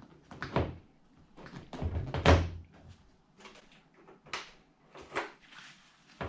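Motorcycle rear seat being fitted and pressed into place: a series of plastic knocks and clunks, the loudest about two seconds in.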